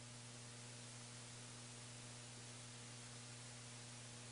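Near silence: a faint, steady hiss with a low electrical hum on the broadcast audio line.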